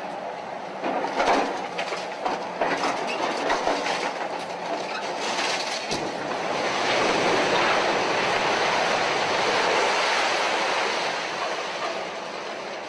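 Excavator demolishing a concrete building: crunching and clattering debris with many sharp cracks, then a louder steady rush of collapsing rubble in the second half.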